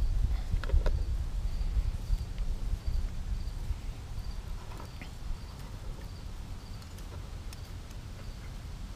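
An insect chirping in short high notes about twice a second, over a low rumble that is loudest in the first couple of seconds, with a few faint clicks.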